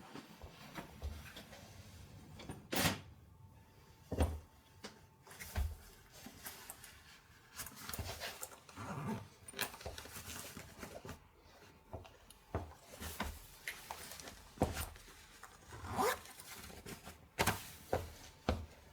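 Irregular close rustling with scattered light knocks and clicks, a few a second, like things being handled.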